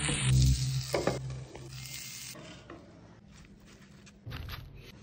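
Masala-coated corn cob pieces sizzling in a nonstick pan as a wooden spatula stirs them. The sizzle fades away after about two seconds, and a short noise follows near the end.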